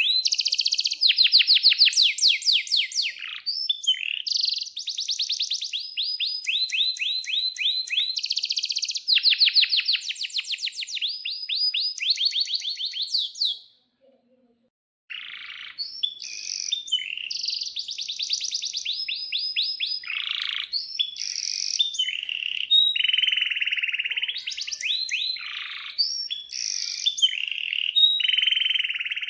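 Male domestic canary singing a long song of fast trills and rolling phrases of rapidly repeated high notes. Roughly halfway through, the song stops for about a second, then resumes.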